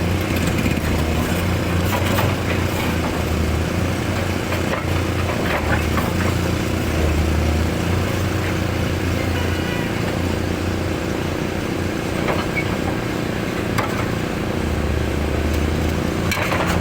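A large hydraulic excavator's diesel engine running steadily, its low drone rising and easing with the work, with a few sharp knocks along the way.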